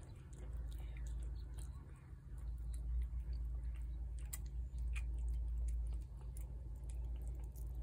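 A cat eating wet cat food from a plate: irregular small wet clicks and smacks of chewing and lapping, over a steady low rumble.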